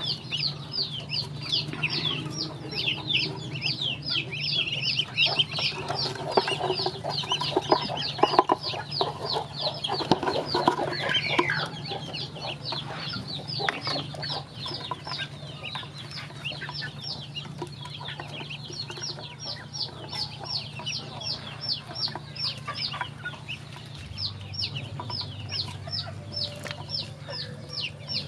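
A group of ducklings peeping nonstop while feeding, a stream of high, quick, falling peeps several a second, with a spell of tapping and pecking noises about halfway through.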